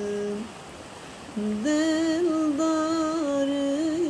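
Female voice singing a Kurdish song in long held notes: one note ends about half a second in, and after a short pause a long note follows, wavering slightly in pitch.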